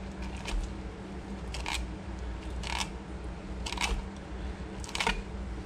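Knife slicing around the ribs of a rock bass on a plastic cutting board: five short scraping cuts about a second apart, over a low steady hum.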